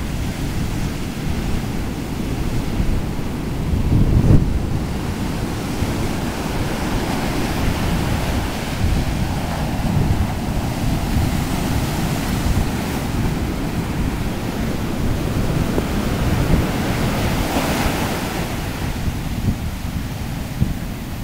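Heavy shorebreak waves crashing and whitewater rushing in, a steady roar of surf with its loudest surge about four seconds in. Wind noise on the microphone.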